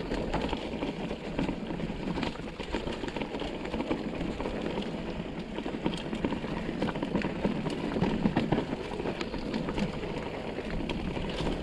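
Mountain bike rolling down a dirt singletrack: a steady rushing of tyres on dirt, with the chain and frame rattling in quick, irregular clicks over the bumps.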